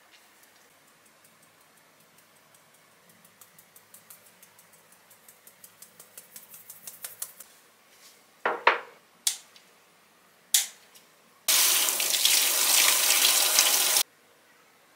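Kitchen pull-out faucet running over washing hands for about two and a half seconds near the end, starting and stopping abruptly. Before it comes a run of faint ticks that speed up and grow louder, then a few sharp clicks.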